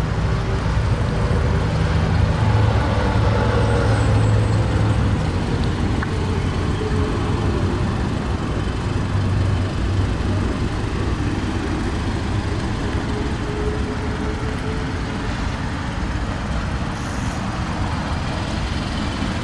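A steady low vehicle rumble, with faint tones slowly wavering in pitch above it.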